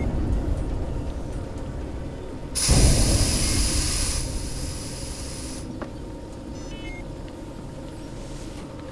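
Horror film sound design: a deep low boom about two and a half seconds in, with a loud hiss over it for about three seconds, then a low rumble slowly fading.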